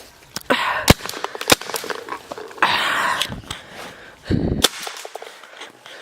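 Paintball gun firing a few single sharp pops, two close together about a second in and another near the end, with stretches of hiss and rustle between them.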